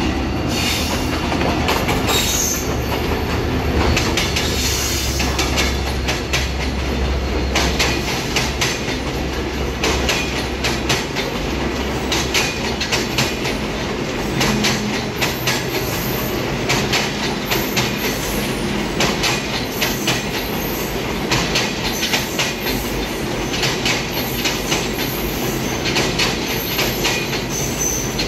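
A Bangladesh Railway diesel-hauled passenger train passing close by. The locomotive's low engine rumble fades after about seven seconds, and the coaches' wheels then clatter in a steady rhythm over the rail joints. A few brief high wheel squeals sound in the first seconds.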